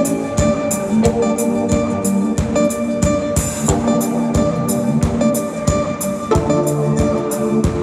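Live pop band playing: a drum kit keeps a steady beat, about three hits a second, under sustained keyboard chords and guitar.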